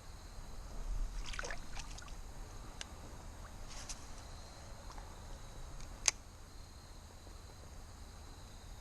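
Creek water splashing and sloshing in short bursts, with a few light knocks and one sharp click about six seconds in.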